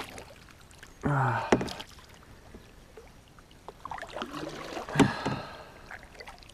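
A small Eastern cod splashing at the surface beside a canoe as it is reeled in on a spinning outfit. A short vocal exclamation comes about a second in, and a sharp knock about five seconds in.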